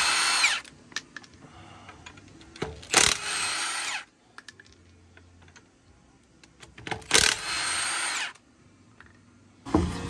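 Milwaukee M18 Fuel cordless impact wrench zipping lug nuts off a truck wheel: three bursts of hammering about a second long, near the start, about three seconds in and about seven seconds in, with faint clicks of handling between them.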